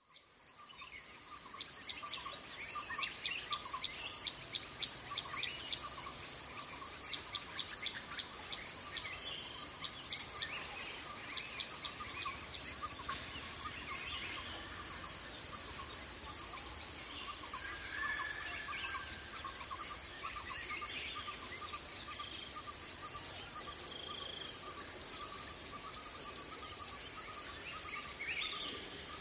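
Forest ambience: a steady, high-pitched chorus of insects buzzing under songbirds chirping and calling, with quick runs of repeated chirps in the first half. It fades in over the first couple of seconds.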